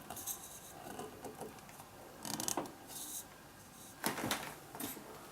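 A few light clicks and rustles of small objects being handled, with the sharpest click about four seconds in.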